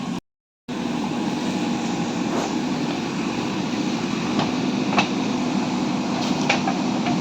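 Steady background rumble with a low hum, like vehicle or machine noise, broken by a short total dropout just after the start and marked by a few faint clicks.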